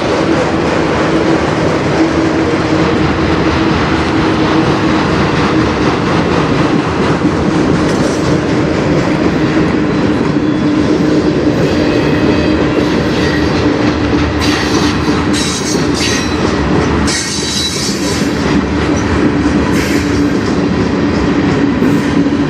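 Freight cars of a CN manifest train rolling past at steady speed, wheels clattering on the rails, with a steady tone underneath. From about halfway through, the wheels squeal high and thin several times.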